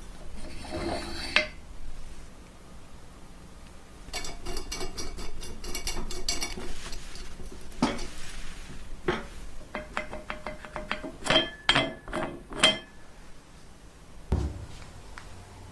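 Hard objects clattering and clinking, some clinks ringing briefly. A stretch of dense rattling comes about four to seven seconds in, and the sharpest clinks come about eleven to thirteen seconds in.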